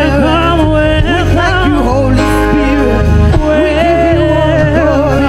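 A woman singing a gospel worship song into a microphone, her melody gliding and bending, over amplified band accompaniment with a steady bass.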